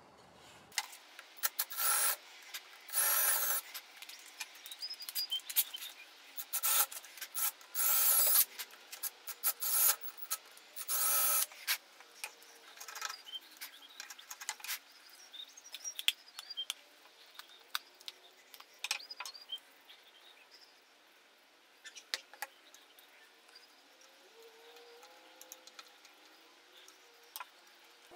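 Cordless drill running in short bursts, five or six in the first twelve seconds, then scattered light clicks and taps on wood.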